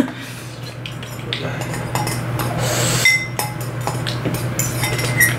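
Metal fork clinking and scraping against a ceramic bowl while noodles are eaten: a run of small clicks, with a couple of brief ringing clinks.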